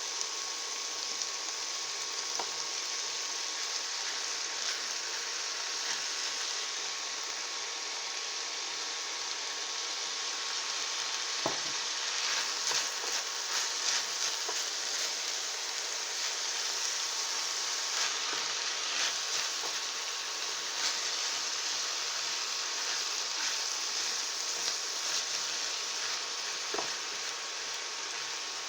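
Swiss chard leaves and stems sizzling steadily in olive oil in a small pan, with scattered light clicks.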